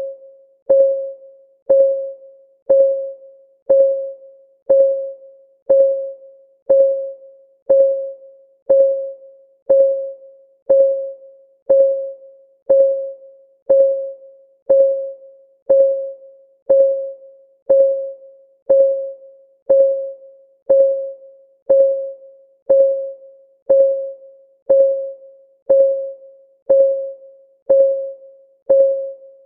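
Countdown timer's clock-tick sound, one tick a second, steady and even. Each tick is a sharp click with a short ringing tone that fades quickly.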